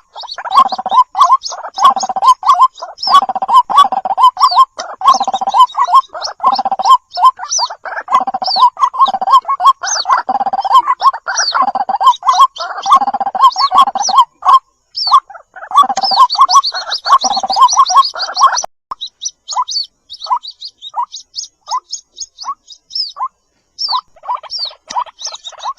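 White-breasted waterhen calling: fast repeated croaking notes with low grunting underneath and higher chirps above. About two-thirds of the way through the grunting stops and the calls thin out to separate, evenly spaced notes.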